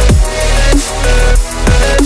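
Loud electronic background music with a heavy bass and a steady beat, the bass dropping in pitch on each beat.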